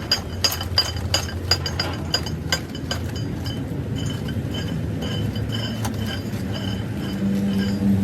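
Metal clinking: light strikes on steel that ring, about three a second for the first two and a half seconds, then fewer. Under them runs a steady low machine hum that gets louder near the end.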